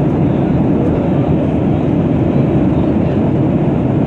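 Steady low roar of a jet airliner's cabin in flight: engine and rushing-air noise heard from inside the cabin.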